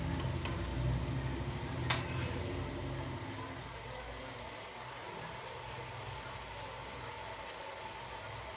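Pot of herbal decoction simmering on a gas stove: a steady low hum with a faint hiss, the low part of the hum fading about three seconds in, and a light click about two seconds in.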